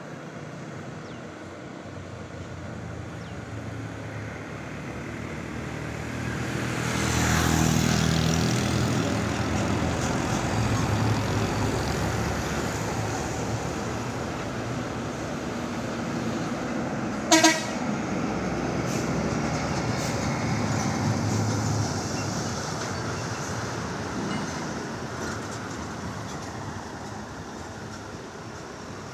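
Heavy trucks driving past on a road, their engine noise swelling about seven seconds in and then fading slowly, with one short vehicle horn toot about halfway through, the loudest moment.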